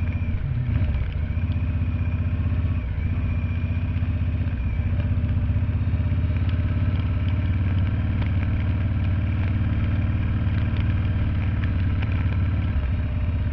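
Harley-Davidson V-twin engine running steadily, its low note holding at an even pitch.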